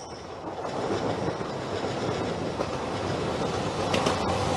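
JR Shikoku 2700 series diesel limited express train approaching, its rumble growing steadily louder. A few wheel clacks are heard about four seconds in.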